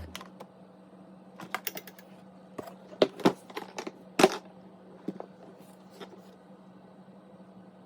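A scatter of light clicks and taps, about a dozen, the loudest three a little before and after the middle, over a faint steady low hum.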